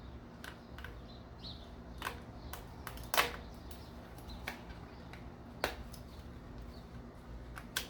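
Scattered light clicks and knocks of engine parts and tools being handled during disassembly, about seven in all, the loudest about three seconds in, over a faint low steady hum.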